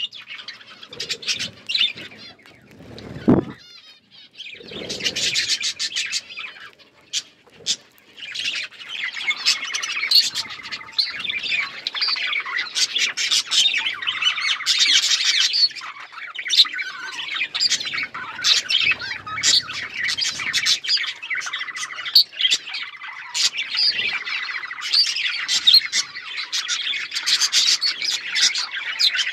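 A flock of budgerigars chirping and chattering in a dense, continuous twitter with occasional squawks, sparser at first and filling in after a few seconds. A brief low thump comes about three seconds in.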